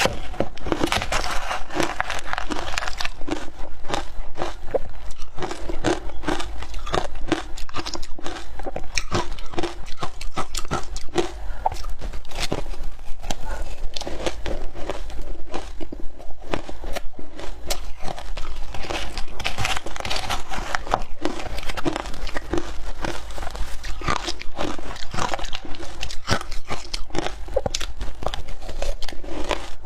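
Frozen matcha ice being bitten and chewed, a continuous run of crisp crunches.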